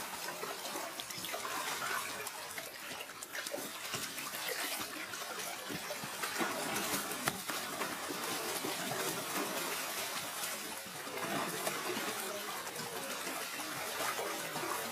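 Large koi thrashing in a shallow plastic tub of muddy water: continuous churning and splashing, with irregular sharper splashes scattered through it.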